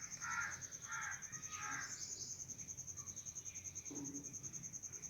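Crows cawing, three short caws in the first two seconds, faint, over a steady high-pitched pulsing tone.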